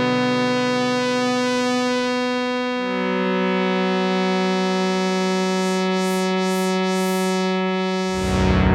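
Sequential Prophet-6 analog polyphonic synthesizer playing held chords with no effects, moving to a new chord about three seconds in. Near the end the chord changes again and a deep bass note comes in.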